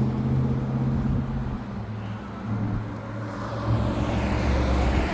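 Car engine and road noise inside a moving car: a steady low hum with tyre and road rush, the engine note shifting partway through.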